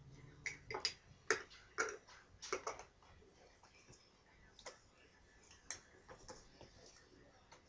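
Metal herb grinder parts clicking and knocking together as they are handled: a quick cluster of sharp clicks in the first three seconds, then a few scattered ones.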